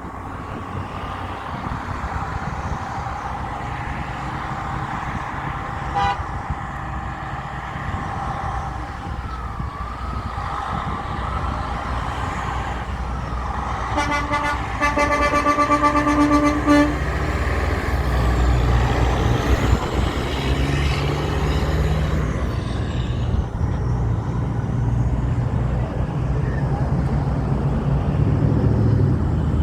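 A big truck's engine approaching and getting louder, with its horn sounding one steady blast of about three seconds midway through.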